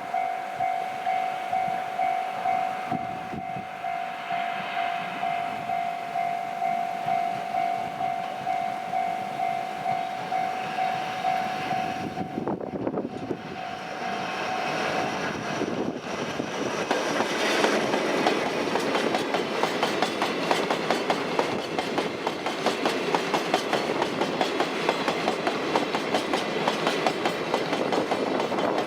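A pulsing warning tone, about two beats a second, for roughly the first half. Then a Chichibu Railway limestone freight train, a Deki electric locomotive hauling loaded Woki hopper wagons, passes close by, its wheels clattering steadily over the rail joints.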